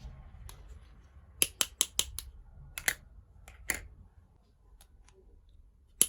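Small pieces of a miniature toy kitchen set clicking and tapping against each other as they are handled: a quick run of about five sharp clicks a second or so in, a couple more near three seconds, one near four, and another run starting at the very end.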